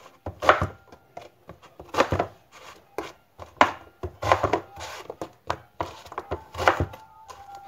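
Kitchen knife slicing an eggplant into rounds, each stroke ending in a sharp knock on a plastic cutting board. The cuts come at an uneven pace, some in quick pairs and some a second or more apart.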